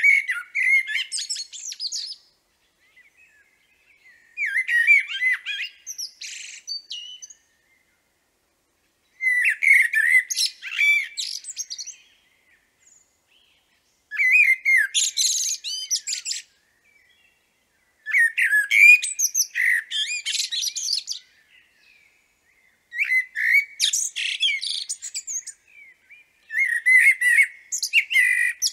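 Eurasian blackbird singing: seven phrases, each starting with low fluty notes and ending in higher, thinner twittering, with a pause of about two seconds between phrases.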